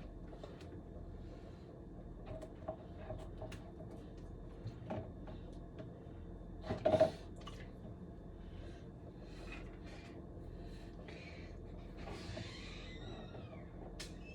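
Kitchen handling sounds while making boxed macaroni and cheese: scattered light clicks and knocks of utensils and cookware, with one louder clatter about halfway through.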